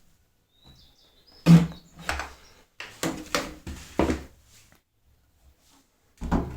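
A run of about six dull knocks and thuds over two and a half seconds, the first the loudest, with a faint high chirping just before them and another loud knock at the very end.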